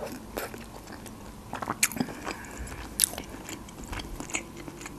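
Close-miked eating sounds of a person biting into and chewing a stuffed cabbage roll: irregular soft wet clicks and smacks of the mouth. A few sharper clicks come about two and three seconds in.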